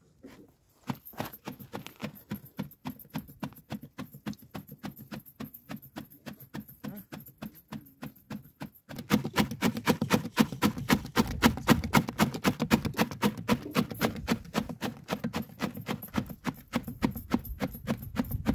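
Bundle whisk of twigs beating and slapping liquid in an aluminium pot, a rhythmic swishing and splashing at about four strokes a second. It becomes louder and closer about halfway through.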